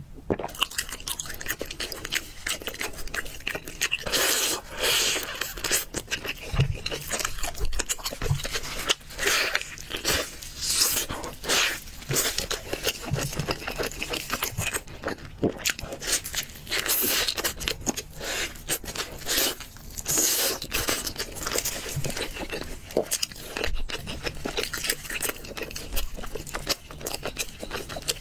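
Close-miked eating sounds: biting and chewing grilled chicken, with wet chewing and irregular crunching and crackling throughout.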